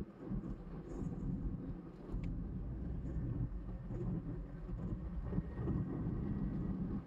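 Perodua Bezza being driven in traffic: a steady low rumble of engine and tyres on the road, getting louder about two seconds in.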